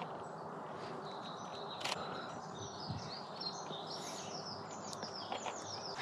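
Songbirds chirping and calling over a steady outdoor background hiss, with one sharp click about two seconds in.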